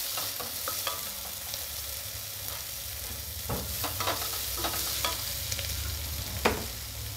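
Sliced onions sizzling in hot oil in a steel pot, sautéed with a wooden spatula that scrapes and clicks against the pot, with one sharper knock near the end.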